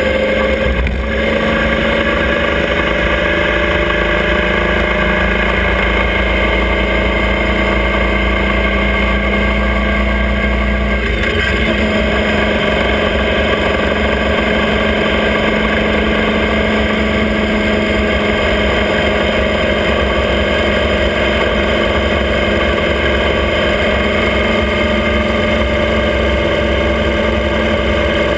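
Motorcycle engine of a sidecar outfit running under way, heard from a camera mounted on the outfit, with wind and road noise. Its pitch climbs slowly over the first ten seconds, breaks briefly about eleven seconds in, then holds steady.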